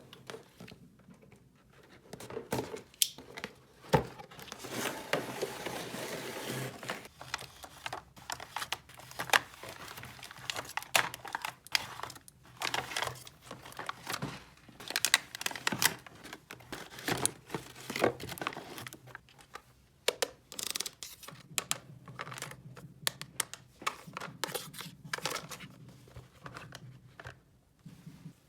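Plastic packaging crinkling and tearing, with many irregular small clicks and taps of small plastic pieces being handled, and a longer stretch of rustling about five seconds in.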